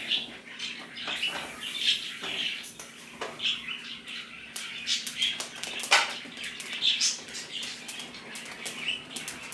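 Light clatter, knocks and rustling of kitchen work: green chile peppers set on a gas stove's burner grate, then dishes handled at the sink, over a faint steady hum.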